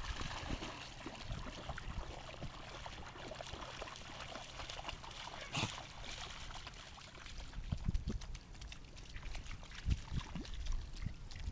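Dogs wading through shallow pond water, splashing and sloshing in short irregular bursts over a low rumble, with a louder splash about five and a half seconds in.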